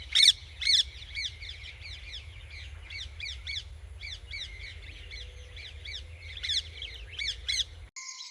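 Birds calling: many short, harsh, arched calls in quick succession, the loudest two at the very start and a few more loud ones past the middle, over a low steady rumble. It all cuts off abruptly shortly before the end.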